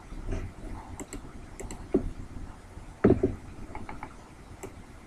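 Computer keyboard and mouse clicks: a few irregular keystrokes and clicks while a value is typed in.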